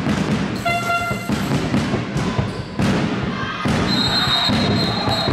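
Handball being bounced, with players' feet knocking on the sports-hall court amid crowd noise. A short horn blast sounds about a second in, and a long high whistle starts about four seconds in and runs on.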